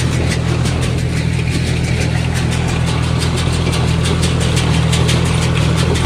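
Farm tractor engine running steadily as it pulls a small square hay baler through cut hay, with a rapid, regular clicking over the drone, about five a second.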